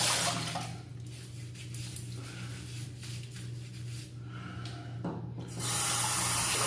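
Bathroom sink tap running, with a brief gush at the start and a longer steady flow from about five and a half seconds in, as during shave rinsing.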